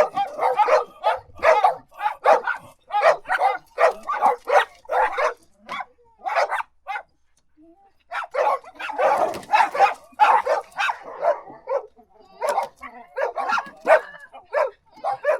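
Dogs barking in rapid, repeated volleys of short barks, several a second, with a pause of about two seconds near the middle before the barking resumes.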